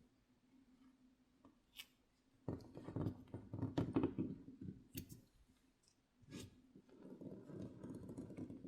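Pry tool working at a phone's glued backplate: sharp plastic clicks and two spells of scraping and rustling as the adhesive is worked loose.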